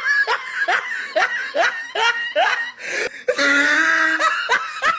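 A person laughing in a quick run of short, rising bursts, about two or three a second, then a longer drawn-out laugh about three and a half seconds in.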